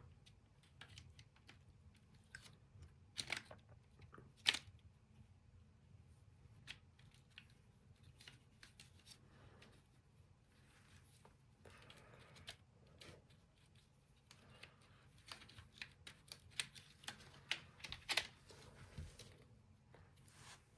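Faint, scattered clicks and taps of plastic parts being handled as a dishwasher's control board is fitted back into its plastic control panel, with two sharper clicks a few seconds in and a run of small taps in the second half.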